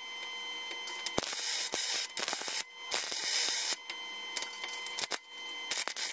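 MIG welder arc crackling as a bead is laid on steel, in several runs broken by short pauses.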